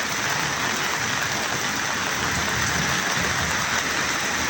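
Steady, even rushing of water in a flash flood, with rain and running floodwater blending into one hiss.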